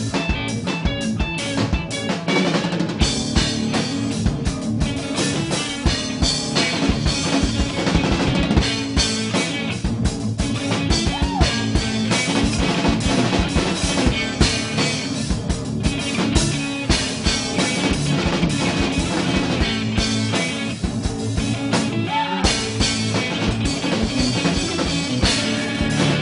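Live rock band playing loudly: electric guitars through amplifiers and a drum kit, with no singing.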